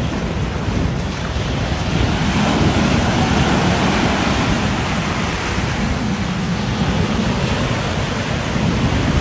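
Steady rush of wind and waves, with wind buffeting the microphone.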